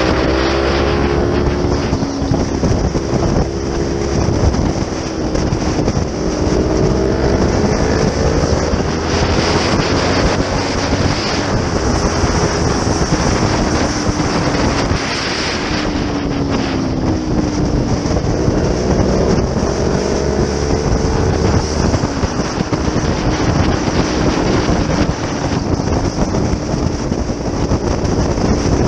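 Sport motorcycle engine running at road speed, its pitch rising and falling several times with throttle and gear changes, under heavy wind noise on the microphone.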